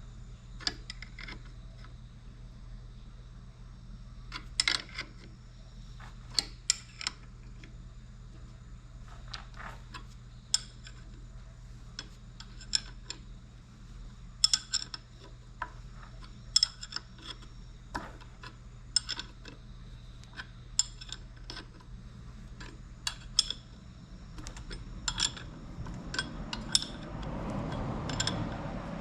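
Metal tools and engine parts clinking and tapping irregularly, some clinks ringing briefly, while the bottom end of a Honda N360 race engine is taken apart. A low steady hum runs underneath, and a rustling noise swells near the end.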